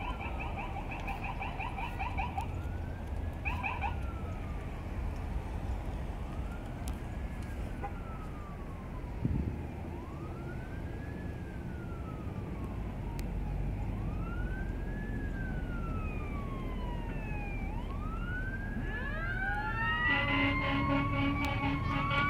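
Emergency vehicle sirens approaching: a slow wail rising and falling about every three and a half seconds, with a rapid pulsing tone in the first few seconds. Near the end more sirens and a horn join in and the sound grows louder.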